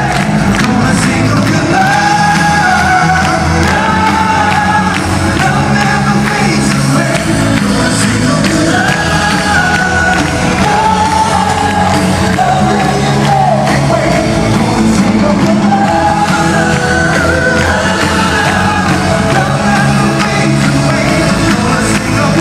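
Music with a singer over steady band backing, the sung melody rising and falling throughout.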